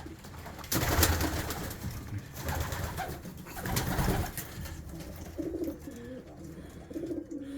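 Domestic pigeons cooing in a loft, with low calls about two-thirds of the way through. Rustling and knocking noise comes about a second in and again around the middle.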